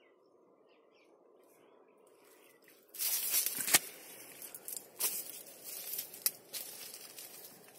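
Grapevine leaves and grape bunches rustling and brushing against the microphone, starting suddenly about three seconds in, with several sharp clicks mixed in.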